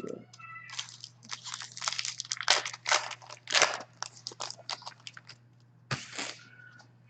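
Trading card pack wrapper crinkling and crackling as it is torn open and handled by hand, in a run of irregular crackles lasting about five seconds.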